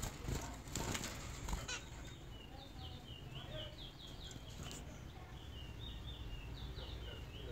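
Caged zebra finches: a flurry of wing flaps and scuffling in the first second or two, then a fast run of short, repeated high calls, several a second, with another flap midway.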